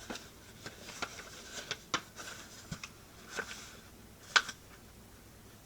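Sheet of printing paper being folded and creased by hand: a scatter of crackles and rustles, the sharpest crack about four seconds in.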